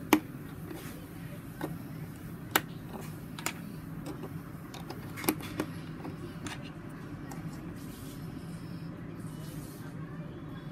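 Lego bricks clicking as they are pressed together and handled: about six sharp clicks, the loudest right at the start, over a steady low hum.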